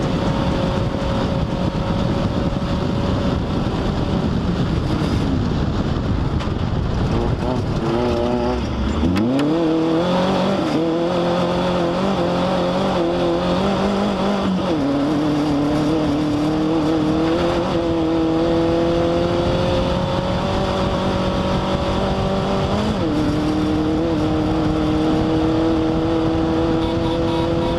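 Off-road race car's engine running hard over a steady rushing noise. About nine seconds in its note sinks low and then climbs sharply as it picks up speed; the pitch changes again later, with a step down near the end.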